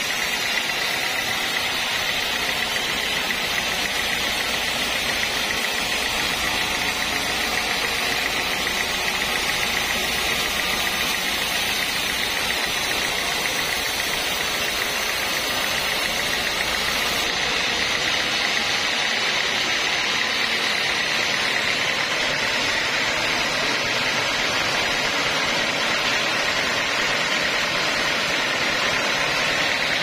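Band sawmill running, a loud, steady hiss with an even whine. A little past halfway the deep low hum drops out while the saw keeps running.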